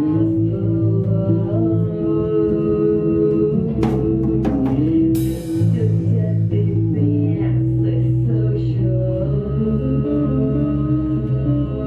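Grunge rock band playing live: electric guitar and bass guitar holding long notes, with a crash about five seconds in that rings away.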